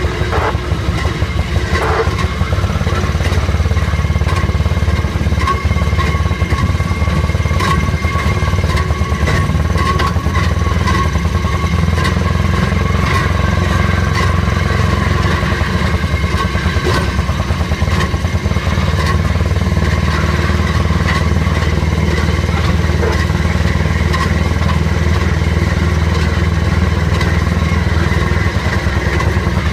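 Southern Railway M9 speeder's engine running steadily as the motorcar travels along the track, with scattered clicks and knocks from the wheels and car.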